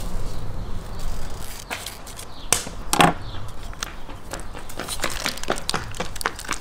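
Plastic sauce sachet being handled, torn open and squeezed: a few scattered sharp clicks and crinkles, the loudest pair about two and a half and three seconds in, over a low steady rumble.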